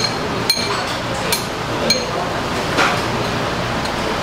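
Metal utensils clinking against ceramic bowls and dishes at a meal table: about four short, bright clinks in the first two seconds, over steady restaurant background noise.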